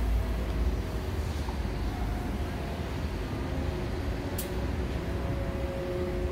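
Street traffic noise: a steady low rumble of passing vehicles. A single sharp click sounds a little past four seconds in.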